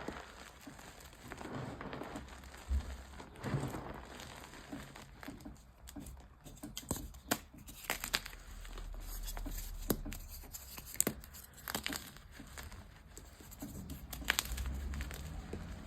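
Dyed gym chalk being crushed and crumbled, giving irregular crunches and sharp crackles over a soft powdery rustle.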